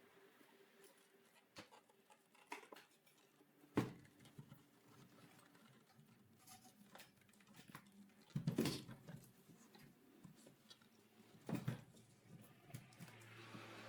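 Quiet background with a few scattered sharp taps and knocks: a strong one about four seconds in, a short cluster near nine seconds, and another near eleven and a half seconds.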